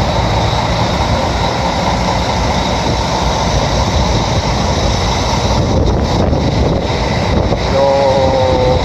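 Steady loud rush of wind and sea over the low drone of a ferry crossing a rough strait. Near the end a horn sounds briefly, a flat steady tone lasting about a second.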